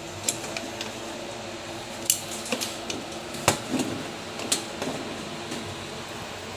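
Metal pressure cooker lid being twisted open by its handle: a handful of sharp metallic clicks and clanks, the loudest about halfway through, over a low steady hum.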